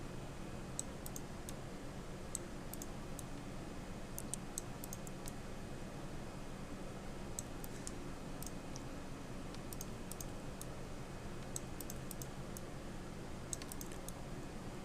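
Computer keyboard and mouse clicking: scattered sharp taps, often in quick little clusters, over a steady low background hum.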